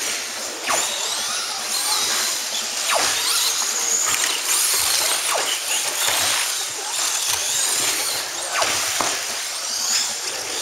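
Electric RC race cars running on a carpet track. Their high motor whines rise and fall in pitch as they speed up and slow down, over a steady hiss.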